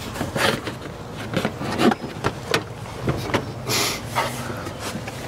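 Plastic RV fender skirt being pushed and shifted into place against the camper's aluminium siding: a string of short knocks and taps with rubbing scrapes, including a longer hissing scrape a little under four seconds in. A low steady hum runs underneath.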